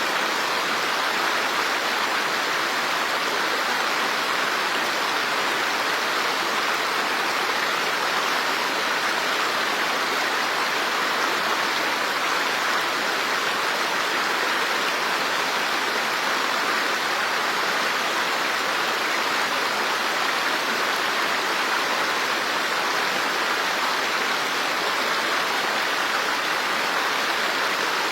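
Running water, a steady unchanging rush with no breaks or separate splashes.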